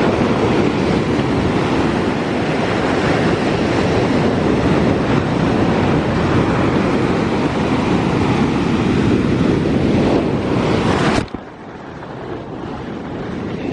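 Sea waves breaking and washing up the beach, with heavy wind buffeting the microphone. The noise drops abruptly about eleven seconds in, then slowly builds again.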